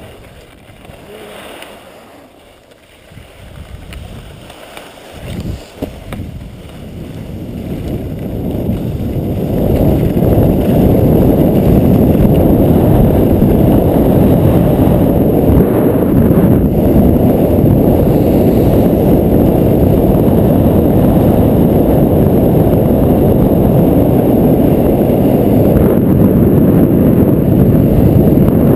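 Wind rushing over an action camera's microphone as a skier gathers speed down a groomed run, mixed with skis scraping over packed snow. The noise is low and quieter at first, with two soft knocks about five seconds in. It builds over the first ten seconds and then stays loud and steady.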